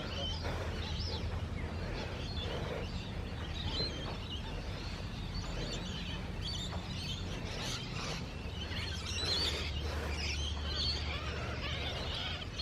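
Many wetland birds calling and chirping at once, short high calls overlapping throughout, over a low rumble of wind on the microphone.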